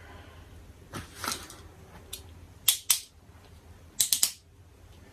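Short sharp plastic clicks and taps from handling a small Zoom F1-LP recorder and its memory card: a couple of clicks about a second in, a pair near three seconds, and a quick cluster of three around four seconds.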